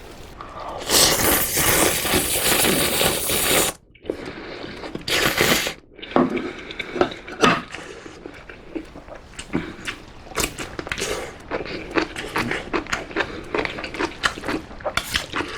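A person eating spicy instant ramen close to the microphone: two long, loud slurps, then chewing with many quick wet smacks and crackles.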